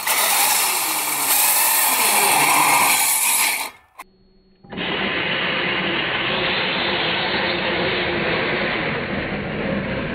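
Traxxas X-Maxx 8S RC truck running on saw blades instead of tyres across lake ice: the brushless motor whines up and down in pitch as the blades grind and scrape into the ice. The sound cuts out about four seconds in, then a duller, muffled grinding carries on.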